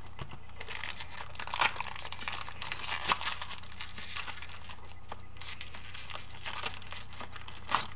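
A card pack's wrapper crinkling and tearing as it is opened by hand, in irregular crackling bursts, loudest about three seconds in.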